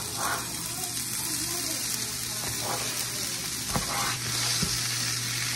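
Ground sweet Italian sausage and diced onion sizzling in a hot cast-iron skillet, the sizzle growing louder near the end as the onion goes in. A few short knocks of a plastic spatula scraping the onion off a plastic cutting board into the pan.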